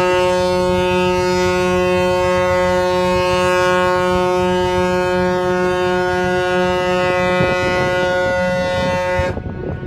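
A large ship's horn sounding one long, steady blast that cuts off about nine seconds in.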